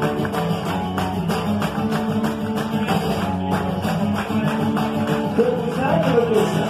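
Acoustic guitar strummed in a steady rhythm, with hand claps keeping time. Near the end a voice glides up and down.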